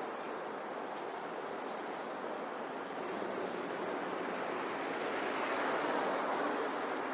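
Steady rushing outdoor noise on a bridge, swelling to a peak in the second half and easing near the end.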